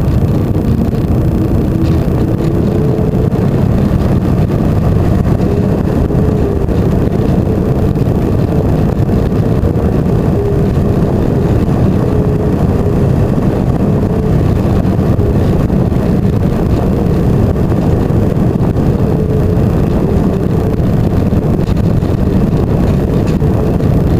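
Electric motor and propeller of an FPV flying wing running in flight: a steady low rush of air with a faint tone that wavers in pitch.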